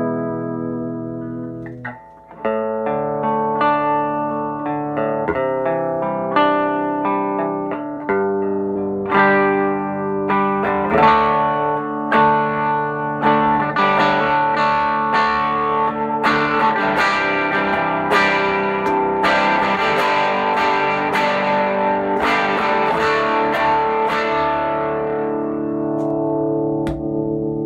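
Electric guitar played through a Sano 16WR vintage tube amplifier combo. It plays picked notes and chords, then denser, brighter strummed chords from about halfway, with a light overdriven edge, letting the last chord ring near the end.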